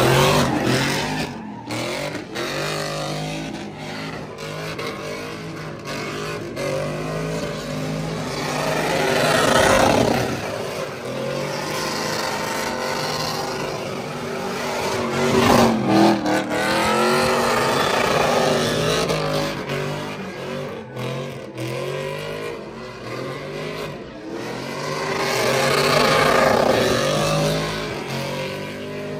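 Pickup truck engine accelerating and easing off several times, its pitch climbing and falling, with the loudest swells about ten, sixteen and twenty-six seconds in.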